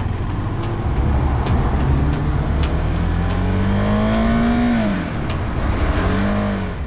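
Motorcycle engine accelerating from a stop, its pitch climbing and then dropping at an upshift about five seconds in, rising again briefly and dropping at another shift near the end, with wind rush on the rider's camera.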